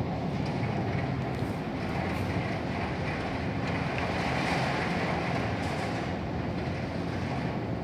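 Storm wind and rain making a steady rushing roar, a little louder about halfway through.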